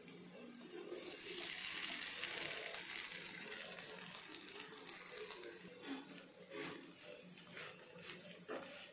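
Tempering of green chilies sizzling in hot oil in a nonstick pan, a steady hiss that fades after a few seconds. Then a spatula scrapes and stirs through the soaked poha in a few separate strokes.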